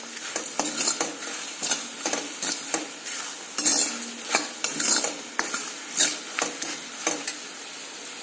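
Steel spoon stirring and scraping spiced onion, coconut and peanuts in hot oil in a hammered metal kadhai, with irregular clicks of the spoon against the pan over a steady sizzle. The masala is being fried so the chilli powder and other spices are cooked, not left raw.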